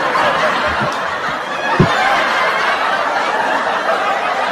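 Canned audience laughter, a steady crowd laughing after a punchline, with a brief low thump about two seconds in.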